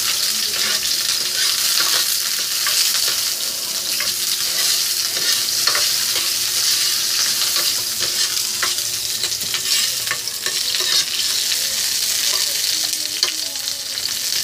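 Chopped onion sizzling in hot cooking oil in a pan, stirred with a metal ladle that clicks and scrapes against the pan now and then.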